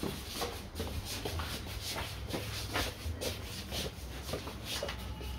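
Shuffling footsteps and scuffing of two men carrying a washing machine, with irregular soft knocks and rubs from handling its casing.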